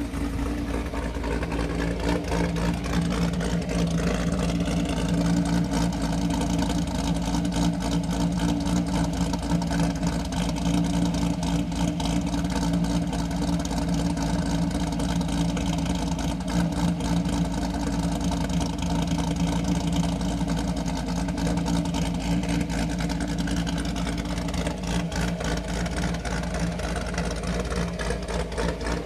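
2012 Camaro SS's 6.2-litre LS3 V8, with a Pat G Motion camshaft, 1 7/8-inch American Racing long-tube headers and a Solo Mach XL exhaust, idling steadily with no revving.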